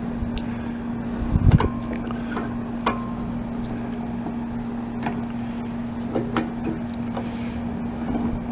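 Scattered knocks and clinks of metal as an aluminum shovel is clamped to a table with a C-clamp; the loudest knock comes about one and a half seconds in, and two clinks ring briefly. A steady low hum runs underneath.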